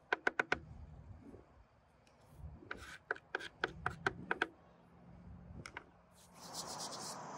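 Knife chopping on a cutting board in two runs of quick strokes: a fast burst of about five, then about eight more, a few a second. A steady hiss builds near the end.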